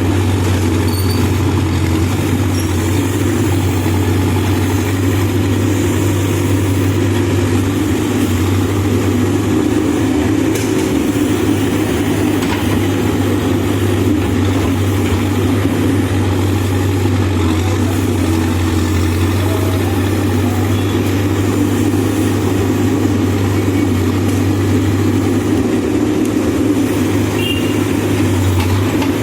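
Backhoe loader's diesel engine running steadily at a constant speed, a continuous low drone with no revving.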